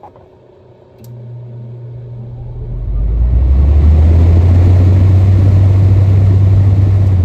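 1977 GE Super Thrust window air conditioner's fan motor starting up: a switch click, a low hum about a second in, then the blower spinning up over a second or two into a loud, steady rush of air over a deep hum.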